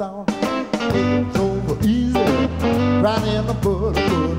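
Live electric blues band: electric guitar, bass and drums come in together just after the start and play on with a steady beat.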